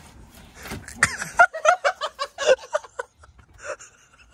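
A person laughing: a quick run of short ha-ha pulses starting about a second in and dying away about two seconds later.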